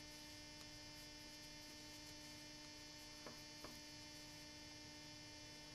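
Near silence: a steady electrical hum, with two faint clicks a little past halfway.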